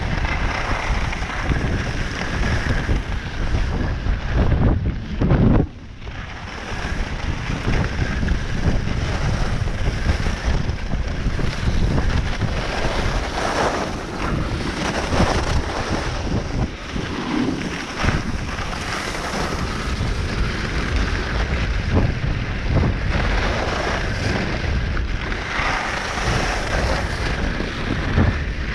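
Wind rushing over the microphone of a chest-mounted action camera while skiing downhill, mixed with the hiss and scrape of skis on snow. The rush swells and eases through the turns and briefly drops away about six seconds in.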